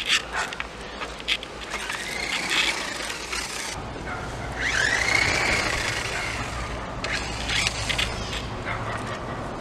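Car door clicking open, then about four seconds in the car's engine starts and settles into a steady low hum, with a brief squeal that rises and falls just after it catches.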